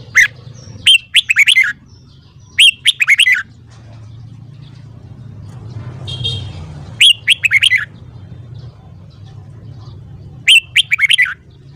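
Red-whiskered bulbul singing: four short bursts of quick, gliding whistled phrases with pauses between them, over a faint steady low hum.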